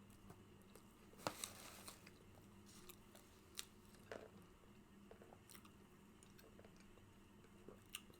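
Close-miked chewing and mouth noises: faint wet smacks and small crunches as food is eaten. The loudest cluster of clicks comes about a second in, with a few single smacks spread through the rest, over a faint steady low hum.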